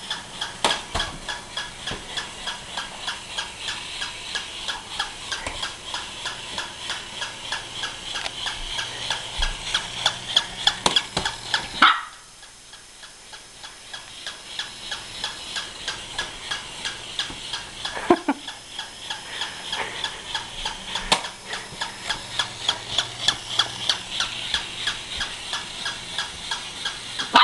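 A wind-up or battery toy dog's mechanism running with a rapid, even ticking of about three to four ticks a second. It stops suddenly about twelve seconds in, starts again two seconds later and runs on. A few short, sharp yips are heard.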